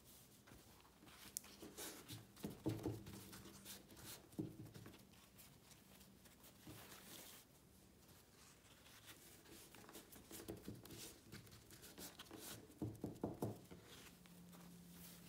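Faint rustling and soft pats of a paper towel being folded over and pressed down on a wet leather strip on a wooden tabletop, in a few short bursts: blotting the water out so the leather stays just damp.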